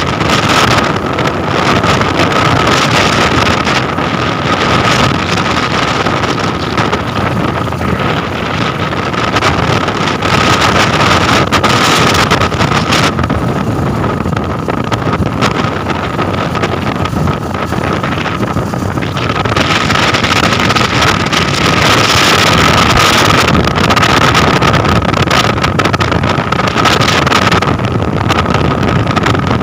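Motorcycle riding at speed, with wind rushing over the microphone and the engine and road noise running underneath. It is loud and steady throughout, with a thin steady whine that grows stronger near the middle and again in the second half.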